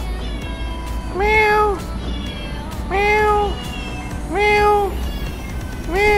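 A domestic cat meowing over and over, four meows about a second and a half apart, each one short, at much the same pitch and evenly spaced, over a low background hum.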